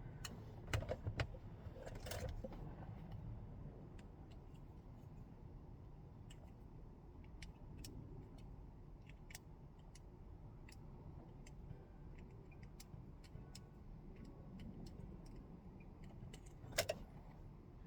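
Scattered clicks and taps of small parts being handled during reassembly of a wireless tow light, with a few louder clicks in the first two seconds and one near the end.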